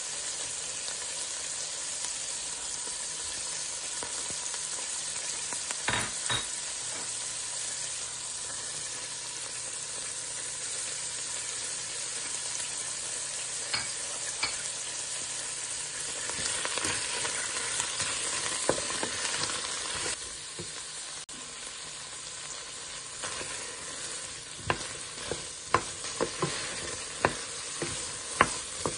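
Steady sizzling hiss of shrimp shells and chopped vegetables cooking in a stainless steel pot. Near the end a wooden spoon stirs them, with a run of sharp knocks against the pot.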